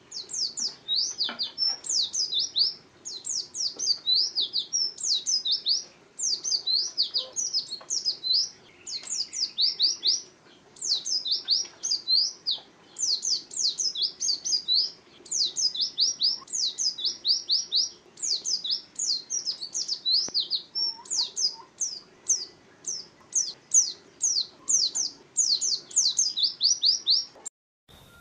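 White-eye (pleci) singing a fast, near-continuous song of short, high, down-slurred notes in quick runs, with only brief pauses between them. The song cuts out for a moment near the end.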